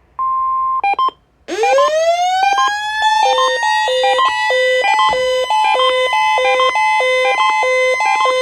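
Midland 74-105XL and ER102 weather alert radios sounding their alarms, set off by the NOAA Weather Radio Required Weekly Test code. A steady beep and a few short beeps come first. About one and a half seconds in, a loud siren-like tone winds up and holds, under a two-pitch beep that switches back and forth a bit under twice a second.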